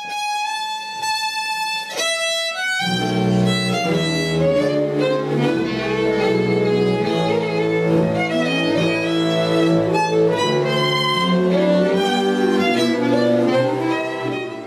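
Folk string band music: a fiddle plays a melody alone, and about three seconds in lower strings join with a bass line and accompanying chords. The band plays on until it fades out just at the end.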